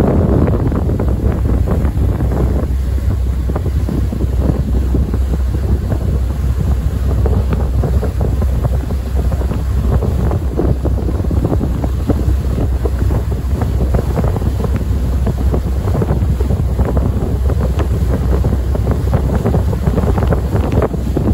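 Loud, gusting wind buffeting the microphone on the open deck of a passenger ferry, over a steady low rumble from the ferry's engine.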